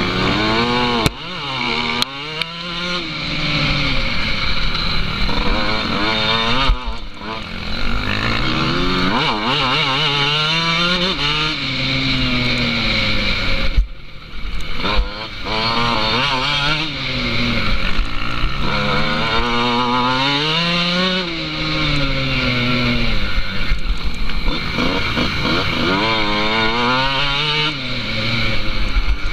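Motorcycle engine heard on board, revving up and easing off over and over: its pitch climbs and drops every few seconds as the bike accelerates and slows.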